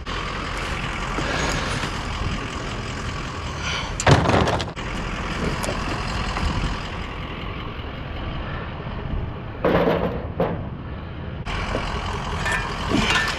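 Scrap patio furniture being shifted and loaded into a vehicle: two knocks and clatters, about four seconds in and again near ten seconds, over a steady rumble.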